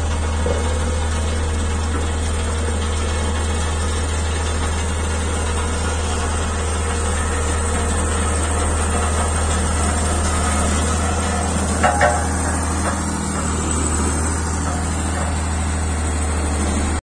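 Ingersoll Rand single-drum soil compactor's diesel engine running steadily with a deep, even drone as the roller drives over loose earth. Two short knocks come about twelve seconds in, and the sound cuts off suddenly near the end.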